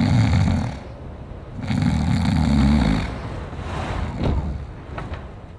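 Snoring: two long, loud snores, the second starting about a second and a half in, then quieter sounds trailing off.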